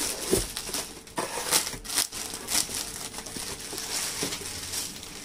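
Clear plastic polybag crinkling and rustling in irregular crackles as a packed T-shirt is handled and slid out of it.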